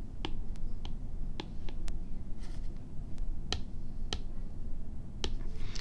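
Stylus tip tapping on a tablet's glass screen while writing: about nine irregularly spaced sharp clicks.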